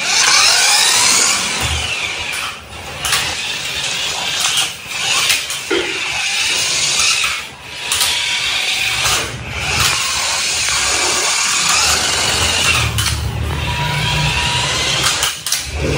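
Remote-control toy car driving, its small electric drive motor whining and rising and falling in pitch as it speeds up and slows. The whine breaks off briefly every few seconds as the car stops and changes direction.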